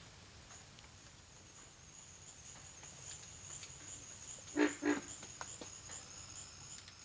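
Outdoor ambience with a faint steady high insect drone and trill, broken by two short loud animal calls about half a second apart, roughly two-thirds of the way through.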